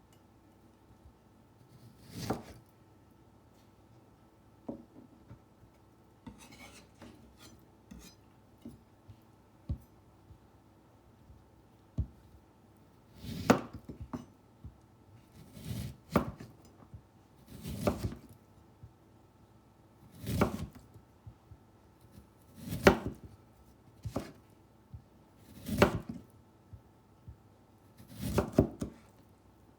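Kitchen knife cutting through a lemon onto a cutting board. There is one cut about two seconds in, then a few light taps and a brief rustle, then a run of eight slices at a steady pace of about one every two and a half seconds.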